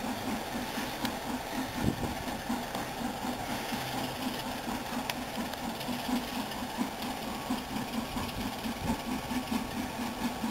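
Diesel locomotive engine idling, with an even pulse and a faint hiss over it.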